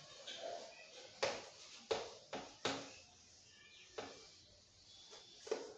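Whiteboard being wiped clean with a cloth duster: about half a dozen short rubbing swipes and light knocks against the board, spread out between quiet moments.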